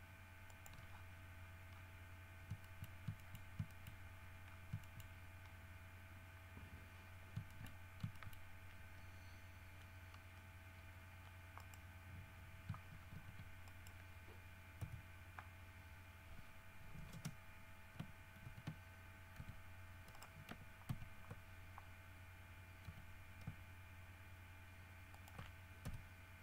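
Irregular clicks from a computer mouse and keyboard keys, single and in short clusters, over a faint steady electrical hum.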